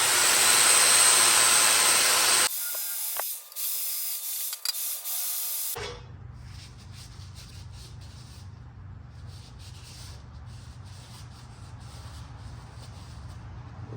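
TIG welding arc on stainless steel: a loud steady hiss for the first couple of seconds, then abrupt cuts to quieter hissing and buzzing over a low hum.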